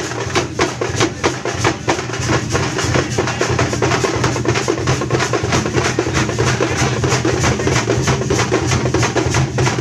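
Drums played in a fast, steady rhythm, with sharp strikes several times a second over a deep, continuous low sound.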